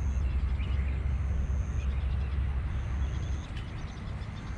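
Low rumble of wind buffeting the microphone, easing a little past the middle. Through it, a faint high thin note lasting under a second repeats about every second and a half.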